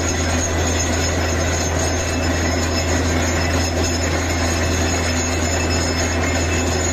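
Borewell drilling rig running at the bore while it throws up muddy water: a loud, steady machine drone with a deep hum and a thin high whine, unchanging throughout.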